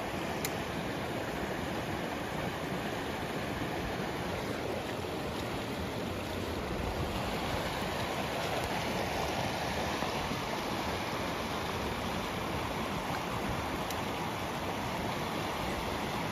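Steady rush of a fast, shallow river running over white-water riffles.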